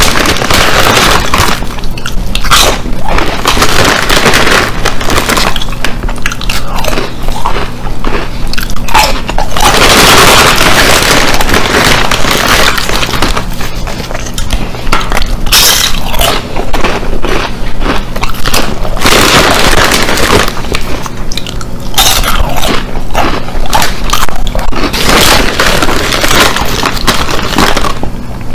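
Very loud, close-up crunching and chewing of potato chips, a dense run of irregular crackles as each chip is bitten and ground between the teeth.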